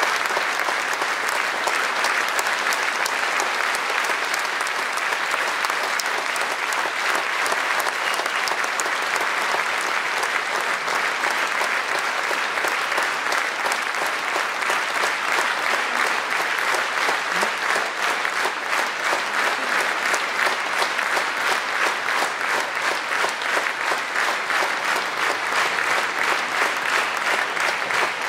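Audience in a hall applauding at length, a dense sustained clapping that settles into a more even rhythm in the second half.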